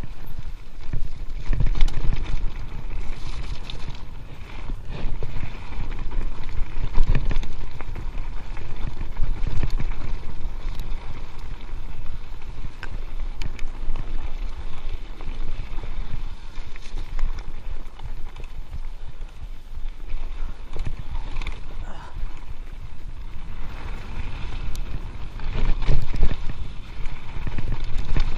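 Giant Stance mountain bike riding fast downhill on a rough dirt trail: wind rushing over the microphone and tyres rolling over dirt and rock, with irregular knocks and rattles from the bike over bumps.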